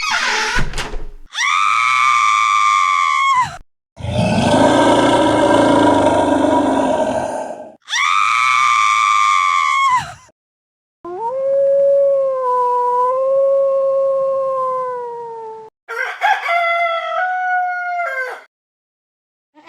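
A run of separate prank sound effects, each a few seconds long with short gaps. A steady horn-like tone comes twice, with a louder, noisier blast between them. Then comes a long wavering pitched call, and near the end a short call that steps between pitches.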